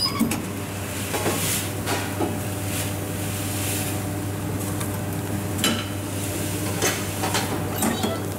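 Electric contact grill in use: metal clanks and clicks as its lid is lifted and lowered over paratha flatbreads, with a faint sizzle from the hot plate, over a steady low hum.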